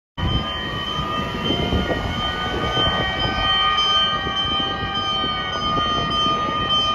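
Fire engines' mechanical motor sirens wailing, several held tones overlapping with slowly drifting pitch, one gliding down near the end, over a heavy low rumble of engines and road.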